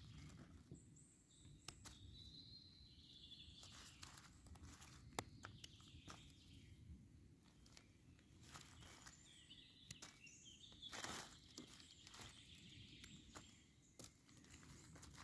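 Faint rustling and scattered clicks of someone moving about on the forest floor, with a bird calling twice in the background, a few seconds each time.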